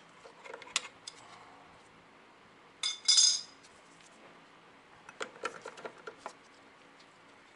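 Metal tools and small engine parts clinking: a sharp metallic clink with a brief ring about three seconds in, then a run of lighter clicks and rattles as a wrench and a nut are handled at the scooter engine's water pump.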